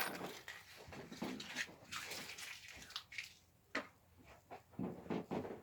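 Irregular scraping and rustling with a few short clicks: hands and tools at work on a guitar fretboard while the last fret goes in.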